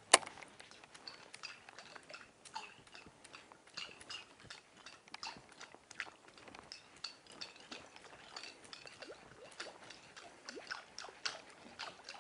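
Quiet, irregular clicks and small splashes from a topwater fishing lure being worked across the water and reeled in. A single sharp click just after the start is the loudest.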